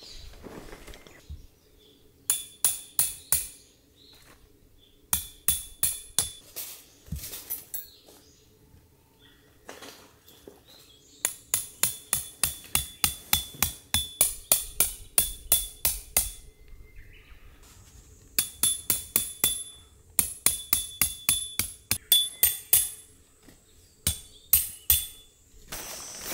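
Quick metal-on-metal hammer blows in several bursts of rapid strikes, each blow with a short bright ring, separated by pauses of a few seconds.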